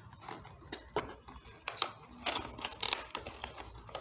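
Small earbuds box being opened and its contents handled: a scatter of sharp clicks and taps mixed with short rustles of packaging.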